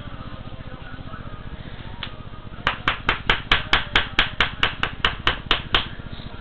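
A quick run of about fifteen sharp knocks, about five a second, starting a little before halfway and stopping about a second before the end, over a steady low hum.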